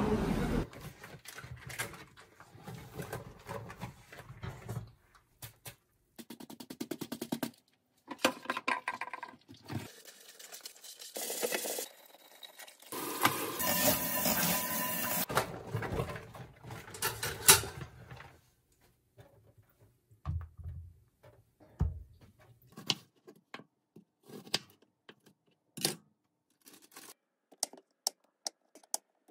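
Tap water running hard onto a frying pan being rinsed in a stainless steel sink, then a chef's knife chopping mushrooms on a plastic cutting board in quick, uneven knocks through the last third.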